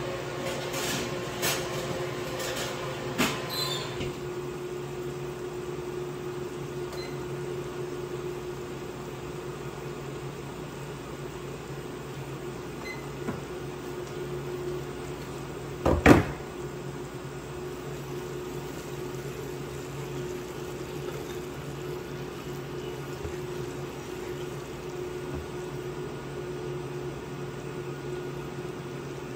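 Portable electric cooktop humming steadily under a stainless saucepan of water heating to a simmer. A few light clicks come in the first few seconds, and a single loud knock about sixteen seconds in.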